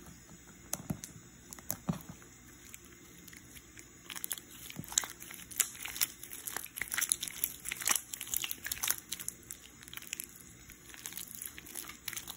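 Clear putty slime loosened with hair gel being squished and stretched between the fingers, giving quick sticky clicks and crackles. The clicks are sparse at first and come thicker from about four seconds in.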